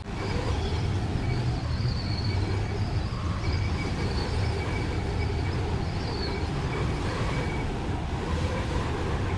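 Steady vehicle rumble with faint, on-and-off high-pitched tones.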